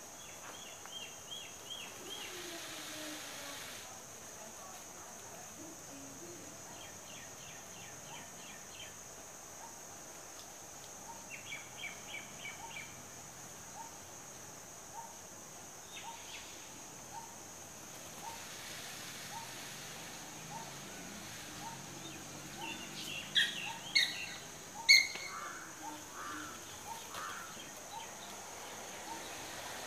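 Outdoor ambience: a steady high insect drone with small birds chirping in short rapid series several times, and a few loud sharp calls about three-quarters of the way through.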